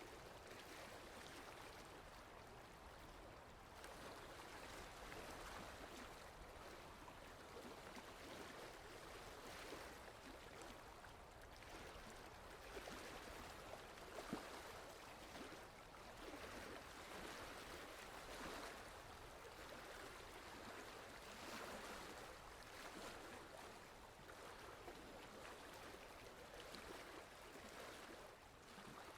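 Small waves gently lapping against a shore: a faint, continuous wash of water with little splashes, swelling and easing every few seconds.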